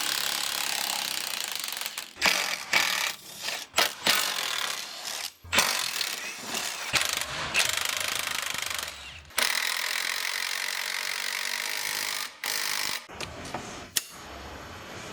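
Pneumatic workshop air tool hammering in stop-start bursts, the longest lasting about two to three seconds, with short blips and knocks between them, as used to undo and tighten suspension fixings on a car.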